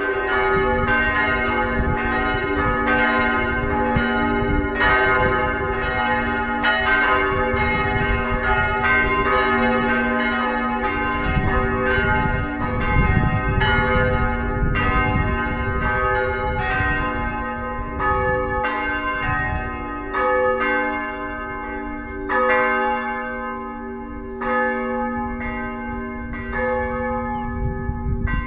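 Full peal of four swinging church bells ringing together, their strokes overlapping at about two a second over a bed of long, humming ringing tones.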